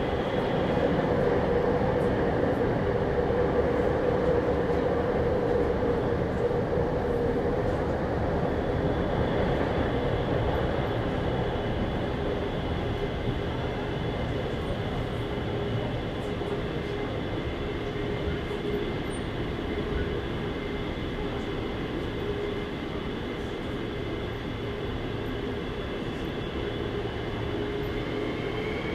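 Daegu Metro Line 1 subway train with updated software running between stations, heard from inside the car: a steady rumble of the wheels on the track with a constant motor whine. Near the end a higher tone begins to rise.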